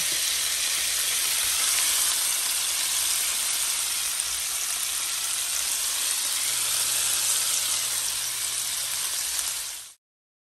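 Lamb chops sizzling in butter in a nonstick frying pan, a steady high sizzle that cuts off suddenly near the end.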